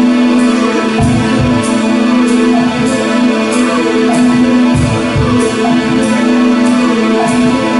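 Live rock band playing an instrumental passage: a held keyboard chord under acoustic guitar and bass, with the drums keeping a steady cymbal beat about twice a second.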